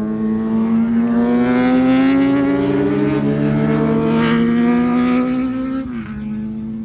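Motorbikes riding past on the road, noisy, their engine note rising steadily and then dropping suddenly about six seconds in.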